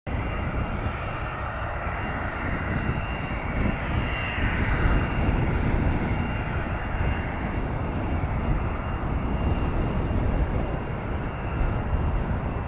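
Twin turbofan engines of a Cessna Citation 560XLS business jet running at low taxi power: a steady high whine over a low rumble, swelling slightly a few seconds in.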